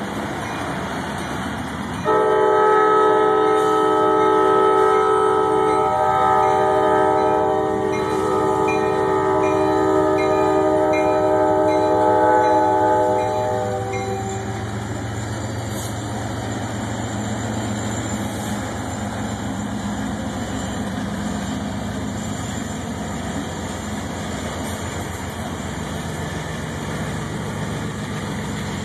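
Norfolk Southern diesel freight locomotive sounding its multi-chime air horn in one long blast, starting about two seconds in and lasting about twelve seconds. The horn is followed by the low rumble of the locomotives and loaded flatcars rolling through the grade crossing.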